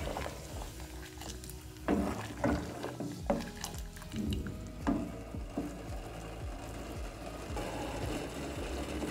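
Sugar syrup boiling in a steel saucepan, with a row of sharp taps and clicks about two to five seconds in.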